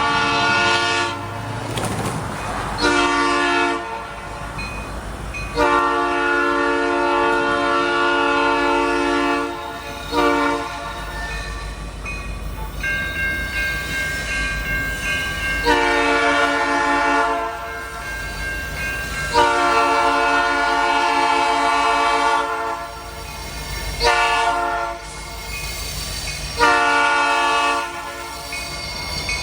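Canadian National diesel locomotive horn blowing a string of long and short chord blasts, with the low rumble of the passing train underneath. A steady high-pitched screech from the train joins in the middle for several seconds.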